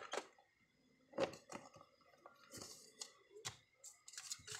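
Small plastic packaging bags and a paper card being handled on a tabletop: scattered soft clicks and rustles, growing denser near the end.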